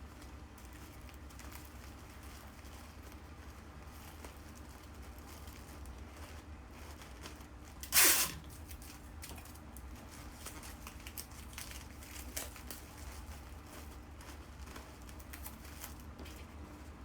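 Bouquet-making materials being handled, with soft crinkling and small clicks, and one short, loud tearing rip about eight seconds in.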